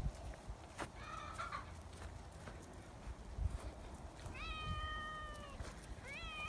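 A cat meowing: a short faint meow about a second in, then two longer meows, each rising at the start and then held level, the second near the end.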